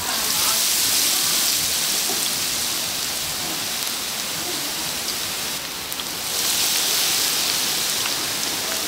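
Battered food deep-frying in hot oil: a dense steady sizzle with a few small pops, swelling louder at the start and again about six seconds in.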